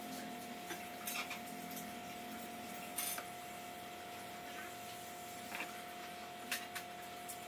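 Small plastic one-handed bar clamps being fitted and ratcheted onto a wooden sled fence: a few scattered sharp clicks and taps, the loudest about three seconds in, over a faint steady hum.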